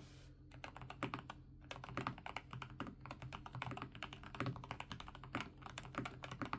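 Fast typing on a Keychron K10 HE full-size keyboard with Hall-effect magnetic switches: a dense run of key clacks with a couple of short pauses, a creamy mechanical sound.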